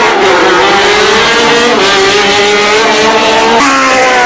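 Race car engines running at high revs, the pitch sagging and rising and then stepping up about three and a half seconds in.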